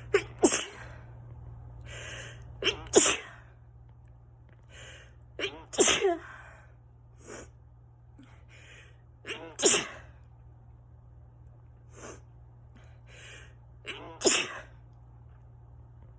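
A person's allergy sneezing fit: five loud, wet sneezes a few seconds apart, each just after a quick catching breath, with softer breaths between them.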